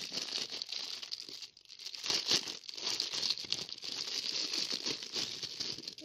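Thin clear plastic bag crinkling and rustling in the hands as it is opened and the toy inside is pulled out, with a brief lull about a second and a half in and the loudest crackling just after.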